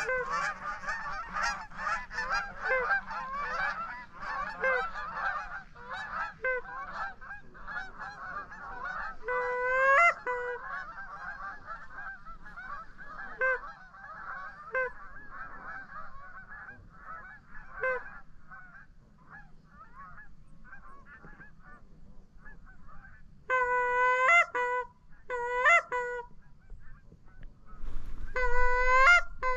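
A flock of geese honking: many overlapping calls at first, thinning to scattered honks, then a few loud, close honks with a rising inflection near the end.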